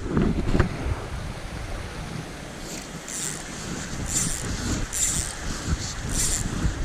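Fly line swishing through the air in four or five short hisses about a second apart as the rod is false-cast, over a steady rush of wind on the microphone and moving water, with a few knocks right at the start.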